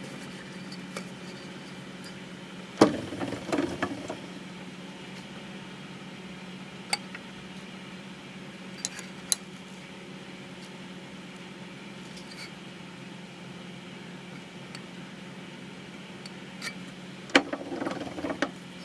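Metal clinks and clatter of a spanner on a bolt and washer as a bamboo disc is loosened on a lathe faceplate and turned to a new position. There is a sharp clink about three seconds in, a few light ticks in the middle and more clatter near the end, over a steady low hum.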